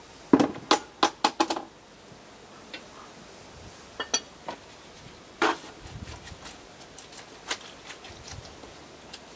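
Sharp metallic clinks and knocks from parts of a homemade steel briquette press being handled and set up: a quick run of about six in the first second and a half, then a few single knocks.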